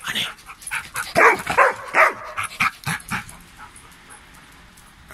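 A dog barking and yipping in a quick string of short calls, about half a dozen in the first three and a half seconds, then quieter.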